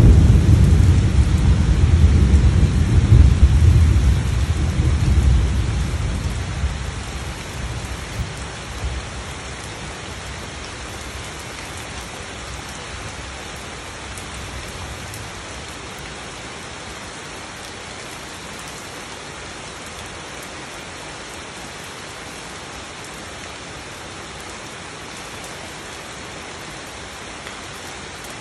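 A long rumble of thunder, loudest at the start and dying away over the first eight seconds or so, over steady rain falling on leaves and wet ground. After the rumble fades, only the steady patter of rain remains.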